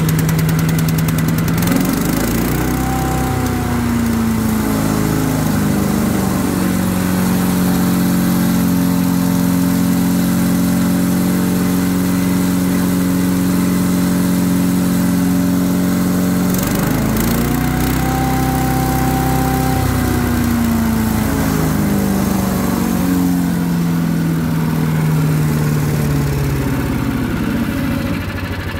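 Harbor Freight Predator 212cc single-cylinder engine on a wood chipper-shredder, running on a newly fitted replacement carburetor. Its speed rises twice, about two seconds in and again about seventeen seconds in, settling back down each time, and it slows near the end.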